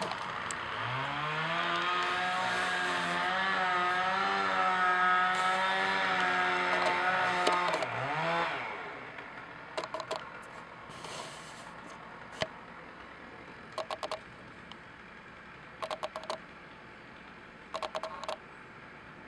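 Two-stroke chainsaw throttled up to full speed and held for about seven seconds while cutting, its pitch wavering under load, then dropped back with a short blip. Several short groups of sharp clicks follow.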